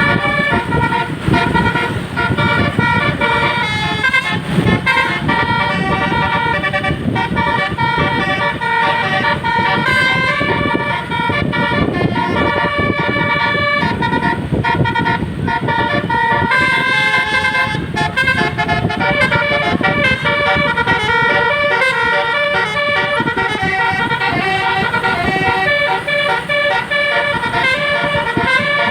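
Basuri V1 telolet horn, a multi-tone bus horn, playing a quick melody of stepping horn notes without a break, over a low rumble.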